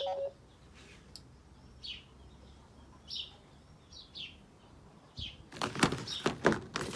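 Phone ringtone or alarm tone made of recorded birdsong: short, high, falling chirps about once a second, then a louder run of rough, noisy bursts near the end. A brief low beep from the previous tone ends right at the start.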